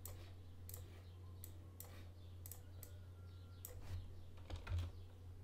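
Computer mouse and keyboard clicks: about seven sharp, scattered clicks, then a few duller knocks near the end that are the loudest sounds, over a steady low hum.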